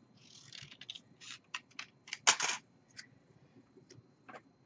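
Scissors cutting a paper business card: a light rustle of handling, then a run of short, sharp snips, the loudest a little past two seconds in, with a few fainter ones after.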